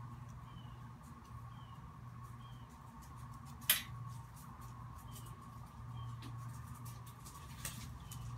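Faint steady background hum, with small high chirps recurring about once a second and a sharp click about midway, then a softer one near the end.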